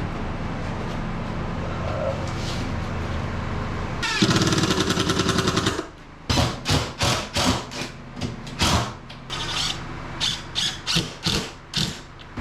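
A cordless power driver, most likely an impact driver, runs for about two seconds with a rapid, even rattle while driving a screw into drywall. It is followed by a string of short knocks and bumps.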